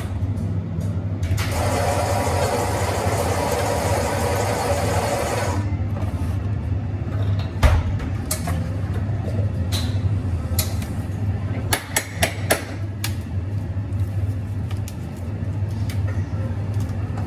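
Espresso bar at work: about a second in, a loud rushing burst from the equipment lasts some four seconds, then scattered clinks and knocks of cups and barista tools follow over a steady low hum.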